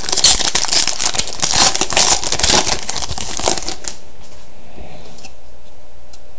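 Wrapper of a trading card pack crinkling and tearing as the pack is opened, for about four seconds, then dying down to faint handling.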